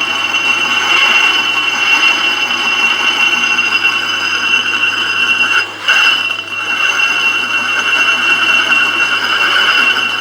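Homemade line boring machine running: a steady high whine with a rough, grinding rattle. It briefly drops away about six seconds in, then carries on.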